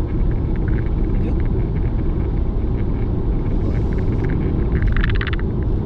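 Steady low rumble of wind buffeting the microphone in a snowstorm, with scattered light ticks and a short rattle about five seconds in.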